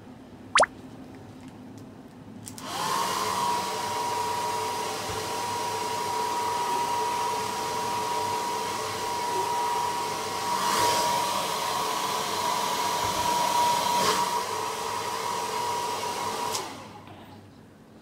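Hair dryer switched on a couple of seconds in, running with a steady whine over its rushing air, then switched off near the end. Just before it starts there is a short, loud rising pop.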